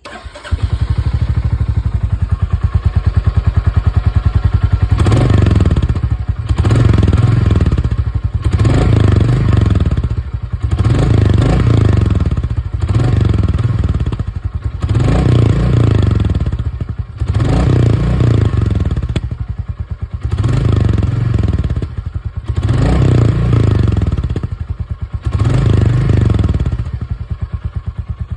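Royal Enfield Classic 350 (Reborn) single-cylinder engine, breathing through its stock silencer. It idles with a steady thump for a few seconds, then is blipped on the throttle about a dozen times, roughly every two seconds, dropping back toward idle between revs.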